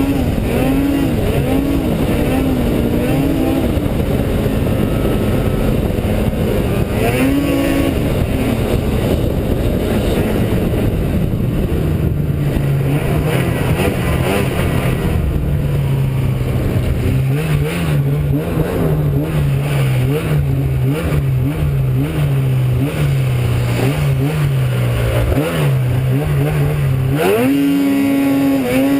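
Snowmobile engine running hard while riding, its pitch rising and falling with the throttle. It settles at a lower pitch through the middle and revs up again near the end.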